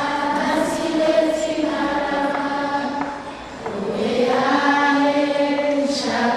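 A group of schoolchildren singing together in unison on long held notes, pausing briefly about three seconds in before the next phrase.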